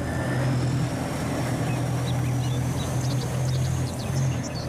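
Japanese Type 16 maneuver combat vehicle's diesel engine running as the eight-wheeled armoured vehicle drives along a road: a steady low drone.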